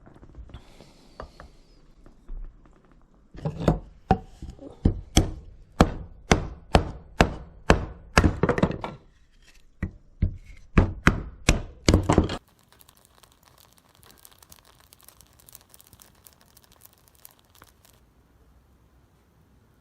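Rapid chopping knocks, about three a second, in two runs with a brief pause between them, then stopping.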